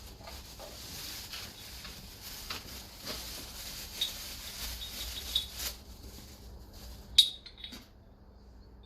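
A high-pitched hiss with scattered small clicks for about six seconds, then a few sharp metallic clinks, the loudest about seven seconds in.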